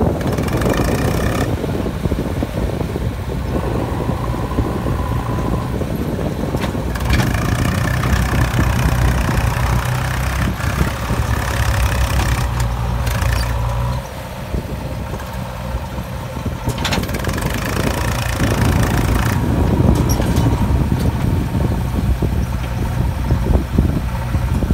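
Diesel engines of a Swaraj 834 XM tractor and a JCB backhoe loader running hard together as the tractor climbs a loose dirt slope. The engine note drops for a few seconds about halfway through, then builds again.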